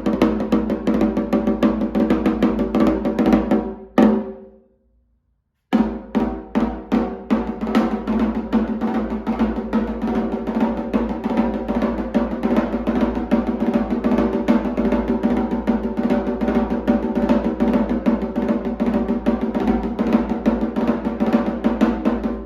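Rumpi atabaque, a tall angelim-wood drum with a goat-skin head, being played in a quick candomblé rhythm: dense strokes ringing at one steady pitch. The playing stops about four seconds in. After a gap of dead silence of over a second, it resumes and carries on.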